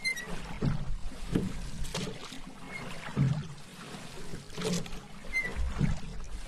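Paddle strokes dipping into and pulling through lake water, splashing irregularly about once a second over steady water noise.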